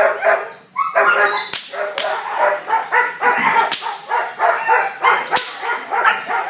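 Several young German Shepherds barking at once, without a break, as they are worked by a protection-training helper. Four sharp cracks stand out among the barks.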